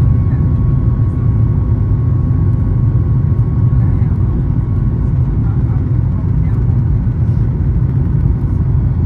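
Steady low rumble in the cabin of a Boeing 737 MAX 8 rolling on the ground, from its CFM LEAP-1B engines and the wheels on the pavement, with a faint steady whine above it.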